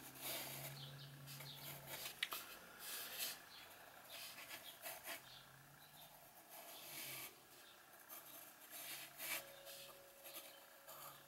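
A graphite pencil drawing lines on watercolour paper: faint, irregular scratchy strokes of varying length, with a small sharp click about two seconds in.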